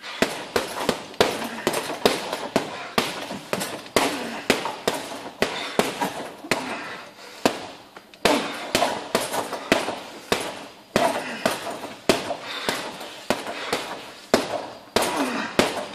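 Boxing gloves punching a Fighter heavy bag in rapid combinations, sharp slaps and thuds about three a second, with a brief pause about halfway through.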